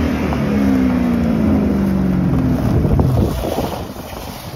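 Car engine revved high, its revs sinking slowly for about three seconds, then dropping away; wind buffets the microphone.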